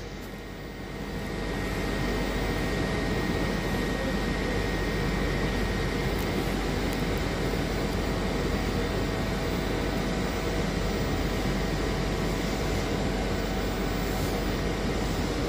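Steady hum and rushing of a TER train standing at the platform, its onboard ventilation and auxiliary equipment running. It swells over the first two seconds, then holds level with a faint steady tone underneath.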